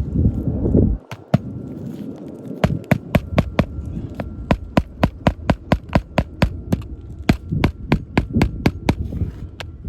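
Quick, even hammer strikes on an asphalt-shingle roof, about three to four a second, starting about a second in after a low rumble.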